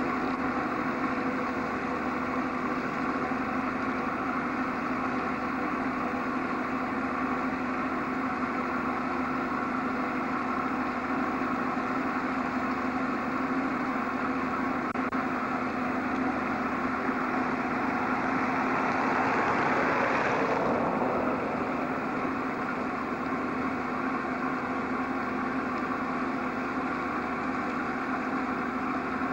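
A large engine runs steadily, a droning hum made of several constant tones. About two-thirds of the way through, a hiss swells for a couple of seconds and then cuts off abruptly.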